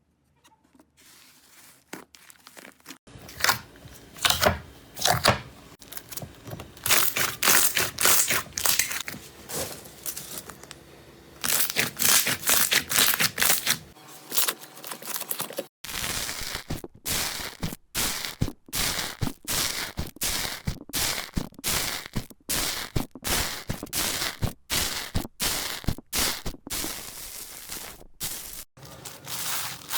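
Slime being handled: crackling, tearing pops as it is pressed and stretched, then from about halfway a quick, regular run of short crunchy presses, roughly two a second.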